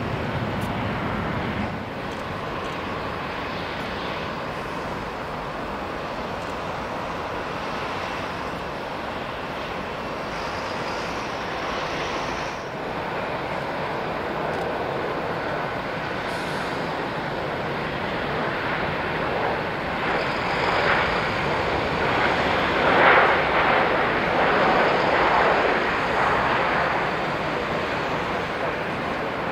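Jet airliner engine noise: briefly a Ryanair Boeing 737 climbing out after takeoff, then a Lufthansa Airbus A320-family jet landing and on its rollout. The engine noise swells louder about two-thirds of the way through the landing roll.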